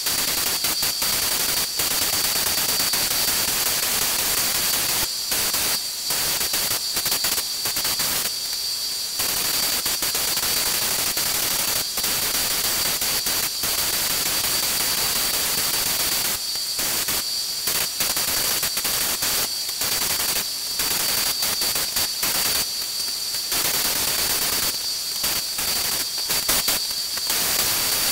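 Compressed-air paint spray gun hissing steadily while spraying paint, the hiss dropping out briefly again and again between passes, with a steady high whistle running beneath it.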